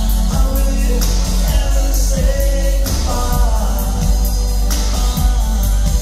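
Live synth-pop band playing, with a man singing over keyboards and a heavy, steady bass.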